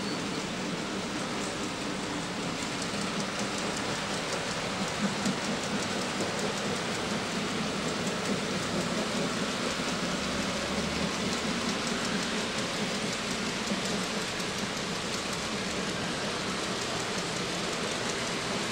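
Model freight train rolling past on the layout's track: a steady rushing hiss of many small metal wheels running on the rails.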